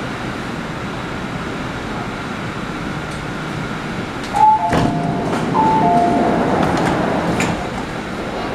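MTR C-Train's doors and the platform screen doors opening at a station stop. After a steady hum, a click comes about four and a half seconds in, then a falling two-note chime sounds twice as the doors slide open, with the noise growing louder for a couple of seconds.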